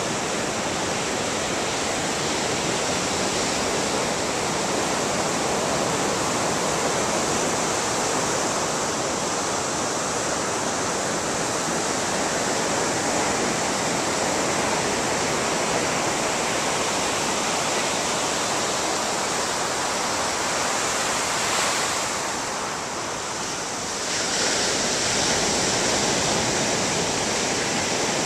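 Ocean surf breaking and washing up a sandy beach: a steady, dense rush of waves that turns briefly softer a little over three-quarters of the way through, then comes back up.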